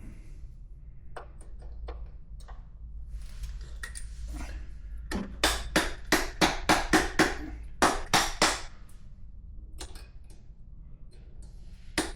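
Pliers working a cotter pin out of a motorcycle's rear axle nut: light scattered metal clicks, then a quick run of about a dozen sharp clicks, roughly three a second, about five seconds in, and a single click near the end.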